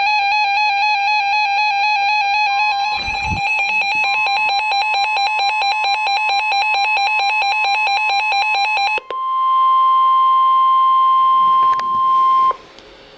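Emergency weather alert tones. A harsh, rapidly warbling alarm tone with many overtones pulses quickly for about nine seconds. It is followed by the steady single-pitch NOAA Weather Radio attention tone, near 1 kHz, held for about three and a half seconds before it cuts off.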